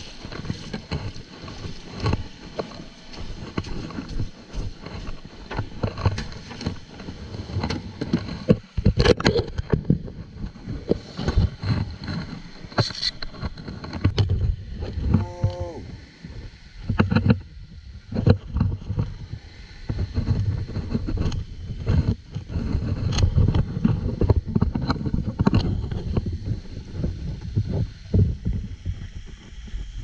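Small waves washing onto a shingle beach, with wind gusting on the microphone and scattered knocks throughout.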